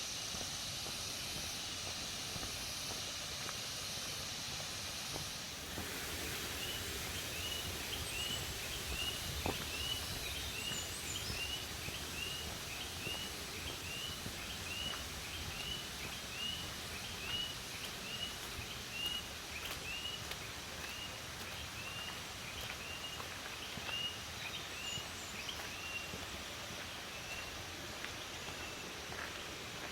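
Rural outdoor ambience: a steady high hiss for the first few seconds, then a short high chirp repeated about one and a half times a second for some twenty seconds, fading out near the end.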